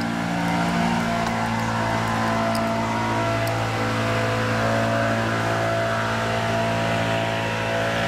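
A police patrol car, a Ford Police Interceptor sedan, running at low speed as it rolls slowly past close by, with a steady engine hum.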